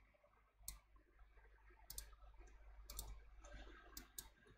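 Faint computer mouse clicks, about half a dozen, scattered at uneven intervals over near silence.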